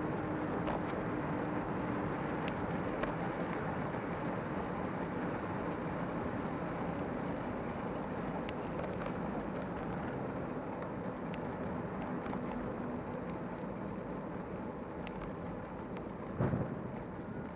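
Steady rumble of bicycle tyres rolling over a rough forest path, with wind on the microphone and scattered small clicks and rattles. A short thump about sixteen seconds in, as from a bump in the path.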